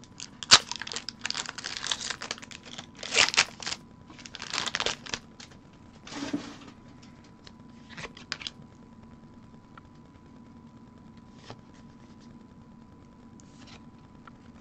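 A Pokémon booster pack's foil wrapper being torn open and crinkled, with the cards pulled out: a run of sharp crackles and rustles over the first eight seconds or so, loudest about half a second and three seconds in, then only a few faint taps of cards.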